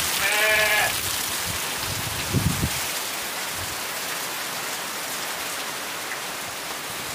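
Heavy rain falling steadily on the shed roof and the ground. Near the start an animal gives one short, wavering bleat lasting under a second.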